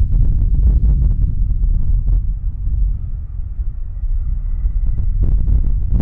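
Boeing 737-800's twin CFM56 turbofans running at climb power as it passes low overhead, a deep rumble mixed with strong wind buffeting the microphone. A faint steady high whine joins about four seconds in.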